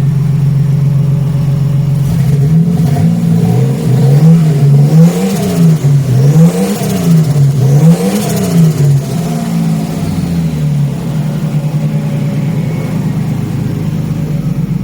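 Ford Falcon AU wagon's engine idling, then revved up and down several times in quick succession before dropping back to a steady idle. It is the odd noise the owner is trying to capture.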